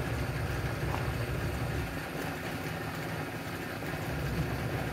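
Steady low machine hum, even in level throughout.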